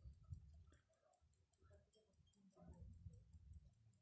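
Omega caliber 12 pocket watch ticking faintly and quickly, about five ticks a second, with soft low handling noise.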